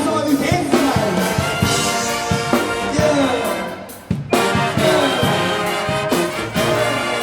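HBCU marching band playing: a loud brass section of trombones and trumpets with bending, sliding phrases over regular drum hits. The band cuts off briefly about four seconds in, then comes back in hard.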